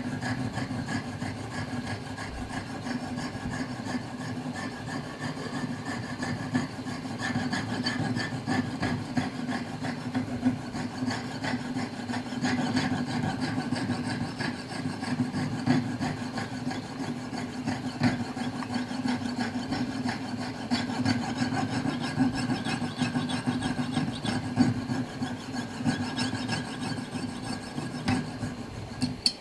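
Piercing saw cutting brass at a clock wheel held in a vise, the fine blade rasping in a steady run of quick, short strokes.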